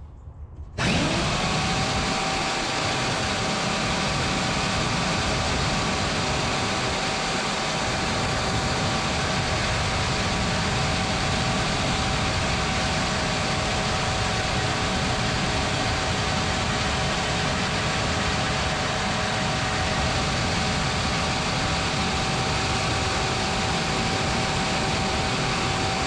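Vertical band saw switching on about a second in and running steadily with a constant whine, its blade cutting a small piece of aluminum bar stock.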